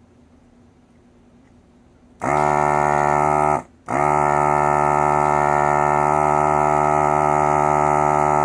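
Hakko FR-300 desoldering gun's built-in vacuum pump buzzing as it sucks melted solder out of a connector pin. It starts about two seconds in, cuts out for a moment, then runs again steadily.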